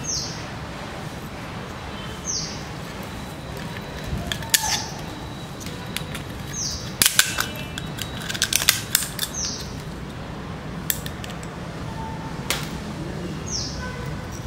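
A spiral seashell cracking and snapping as small cutting pliers nip pieces off its shell: sharp cracks and clicks, thickest a third to two-thirds of the way in. A bird in the background repeats a short, high, falling chirp every couple of seconds.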